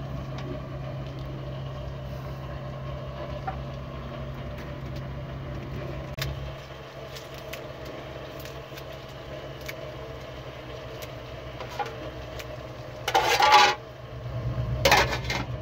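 An engine running at idle with a steady low hum, with a few faint clicks of kitchenware. Near the end come two short, louder noisy bursts.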